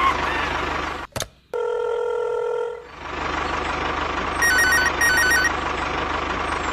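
A telephone ringing in two short trilling bursts, over a steady rumble with a low pulse like a running engine. A single steady beep sounds about two seconds in.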